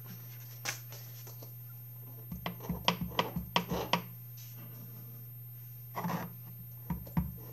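Clicks and taps of a clear acrylic stamp block and ink pad being handled on a cutting mat, over a steady low hum. A quick run of taps comes two to four seconds in, and a few more near the end.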